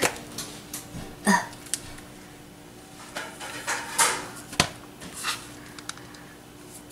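A spoon scraping softened ice cream out of a carton, in scattered short scrapes, with a sharp knock a little past halfway.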